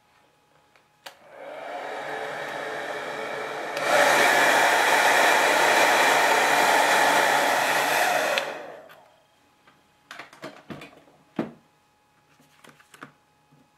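Hand-held hair dryer switched on and spinning up about a second in, blowing steadily, then turned up to a louder setting about four seconds in, and switched off after about eight and a half seconds, winding down. It is heating the iPhone 3G's logic board, a heat fix for Wi-Fi that finds no networks. A few faint handling clicks follow.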